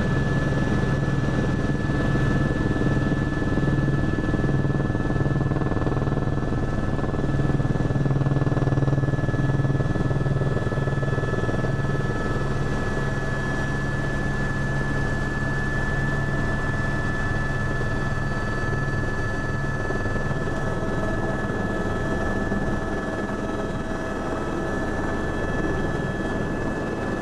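Helicopter heard from inside the cabin: a steady high turbine whine over the rapid, even beat of the rotor blades.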